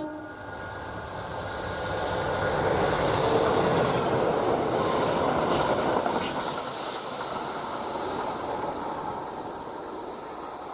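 Class 50 diesel locomotive and Network Rail rail grinder train passing at speed: a continuous rumble of engine and wheels that builds to a peak a few seconds in, then slowly fades as the train moves away, with a brief high wheel squeal near the middle.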